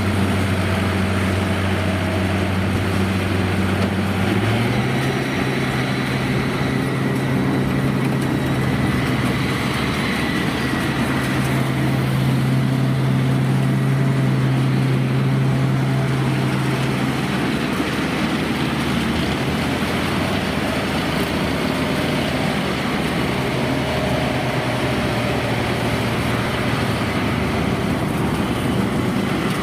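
Combine harvester's Yanmar 4T100 engine running steadily under load as the machine works through a waterlogged paddy. Its note steps up slightly about four seconds in.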